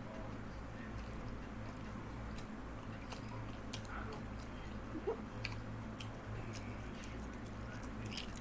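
Quiet chewing and wet mouth clicks from someone eating close to the microphone, the clicks getting more frequent from about three seconds in, over a steady low hum.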